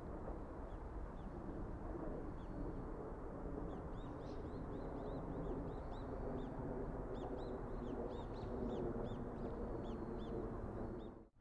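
Small birds chirping repeatedly, many quick high chirps that grow busier about halfway through, over a steady low rumble. The sound cuts off abruptly at the very end.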